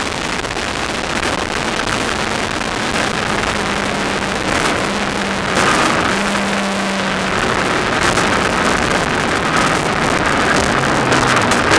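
Kawasaki ZX-10R inline-four motorcycle engine in a kit car running hard on track, heard from inside the car with heavy wind noise on the microphone. The engine note shifts about halfway through and again near the end.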